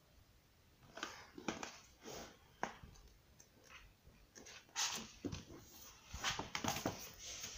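Pages of a colouring book being flipped and the book handled: a run of irregular short paper rustles with a few sharp taps, starting about a second in.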